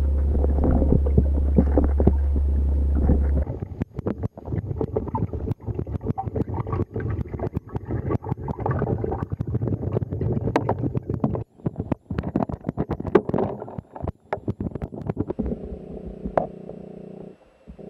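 Underwater sound of red-bellied piranhas feeding in a frenzy: rapid, irregular clicks and snaps over gurgling water. A steady low hum runs through the first three seconds, and the sound cuts out abruptly several times.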